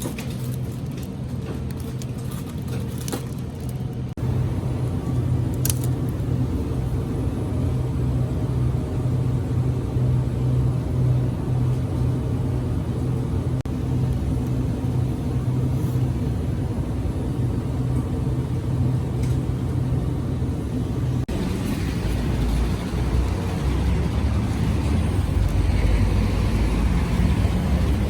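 Steady low running noise of a moving road vehicle, with a low hum. About three-quarters of the way through, the hum fades and a rougher rumble takes over.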